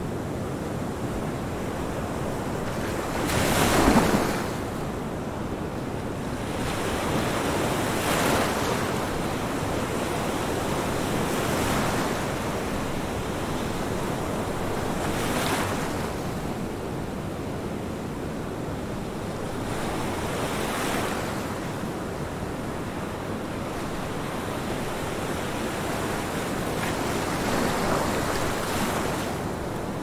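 Waves washing in: a steady rush of surf that swells and eases every few seconds, loudest about four seconds in.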